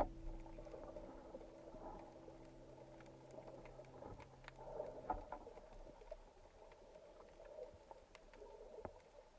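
Faint underwater ambience with scattered small clicks and crackles. The held notes of background music cut off about five seconds in.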